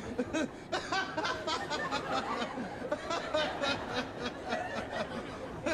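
Audience laughing and chuckling, many voices overlapping in short bursts.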